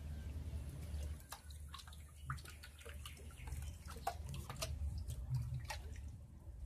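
Faint, irregular small clicks and drip-like ticks over a low steady hum.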